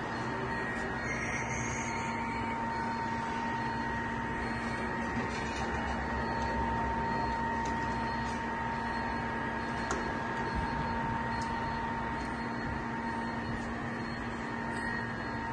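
Steady machinery hum: an even noise with a few constant tones held throughout, and a few faint clicks about ten seconds in.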